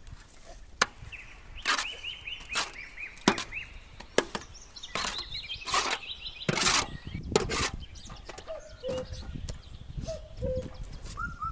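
A long-handled hoe digging cow-dung compost out of a steel trailer bed: irregular knocks and scrapes as the blade bites into the compost and strikes the metal floor.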